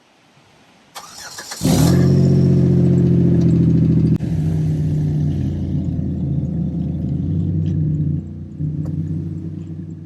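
Buick car engine starting: the starter cranks briefly, the engine catches and runs loud for about two seconds, then settles to a steady idle.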